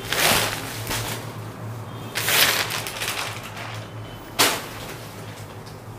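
Soft silk ikat saree being handled and turned over, the fabric rustling in three bursts: one at the start, a longer one about two seconds in, and a short sharp one just after four seconds.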